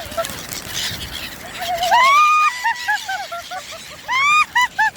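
Seagulls calling: a long rising call about two seconds in, followed by a run of short, quickly repeated notes, then the same long call and run of short notes again about four seconds in.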